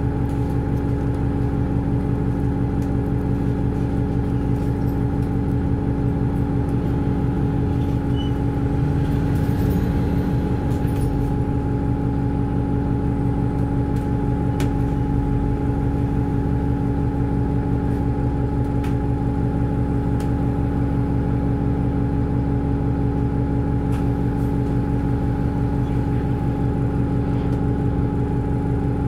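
Alexander Dennis Enviro 200 bus's diesel engine idling steadily, heard from inside the saloon while the bus stands still, a constant low drone with a few fixed hums over it. A slight swell rises and fades about ten seconds in.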